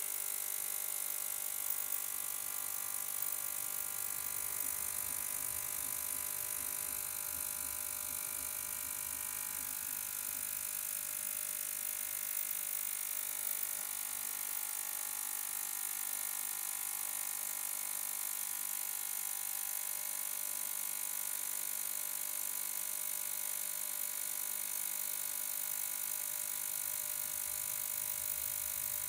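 GT Sonic 750 ml ultrasonic cleaner running partway through its eight-minute cycle: a steady buzz from the tank as it agitates a bath of water and washing-up liquid.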